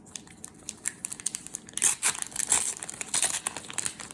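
Plastic trading-card pack wrapper crinkling and tearing as a new pack is opened: a quick, irregular crackle that grows busier from about two seconds in.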